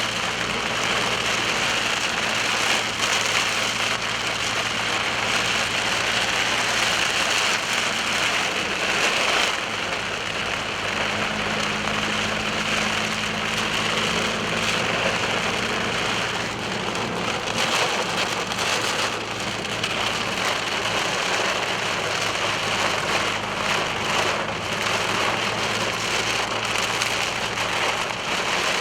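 Steady rain falling on a moving car's roof and windshield, with a constant low drone from the engine and road underneath.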